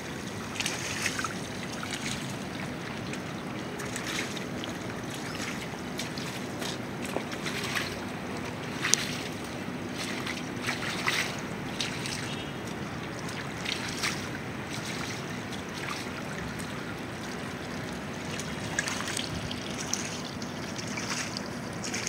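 Steady trickling, running water, with scattered small splashes and taps.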